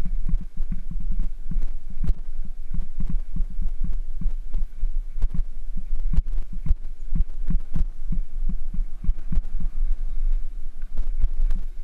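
Mountain bike riding over a rough rocky gravel trail, heard through a mounted action camera: irregular knocks and rattles from the jolts over a steady low rumble.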